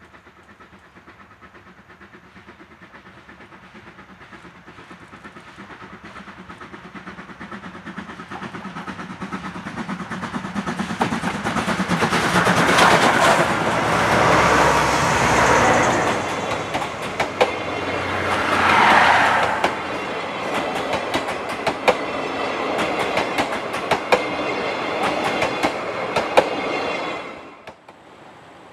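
Steam-and-diesel double-headed passenger train, a C56 steam locomotive and a DD51 diesel, approaching and passing close by. The sound grows steadily louder and peaks about halfway as the locomotives go past. The coaches' wheels then click steadily over the rail joints, until the sound drops away suddenly near the end.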